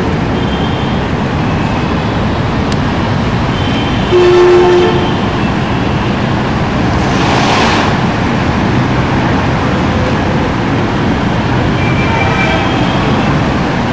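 Steady city traffic noise, with a vehicle horn tooting once for under a second about four seconds in. A brief rushing swell follows a little after seven seconds.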